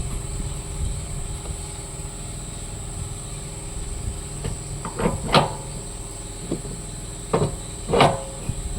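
Several sharp knocks and clanks, in pairs about halfway through and near the end, over a steady high insect drone.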